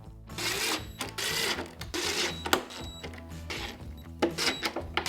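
Allen bolts being driven back in with a tool, heard as several short bursts of rapid mechanical clicking and whirring, with background music underneath.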